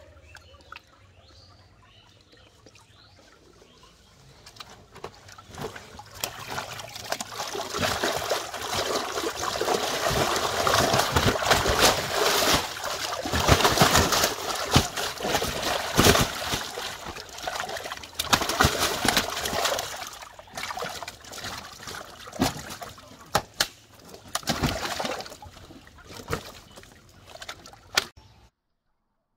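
Large carp thrashing in a shallow, water-filled tarp hold, splashing and sloshing the water. Quiet trickling at first, then the splashing builds to a long spell of heavy, rapid splashes, dies down to a few separate splashes and stops abruptly near the end.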